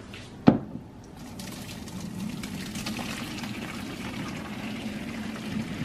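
Cooking water being poured off a pot of part-cooked basmati rice into a plastic colander in a stainless steel sink: a steady splashing pour that sets in about a second in and grows a little louder. A single sharp knock comes just before the pour begins.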